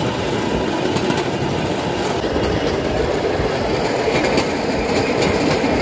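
Pedal-powered rail bike rolling along the track: a steady rumble of steel wheels on the rails, with scattered sharp clicks.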